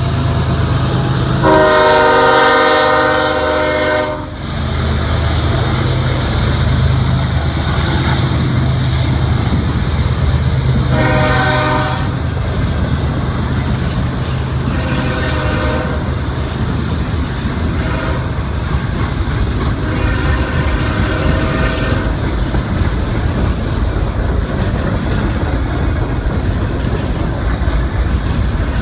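CSX freight diesel locomotive's multi-chime air horn sounding four blasts: a long, loud one about two seconds in, then three shorter, fainter ones later. Beneath it the locomotive's diesel engine drones steadily and the wheels clatter over the rail joints.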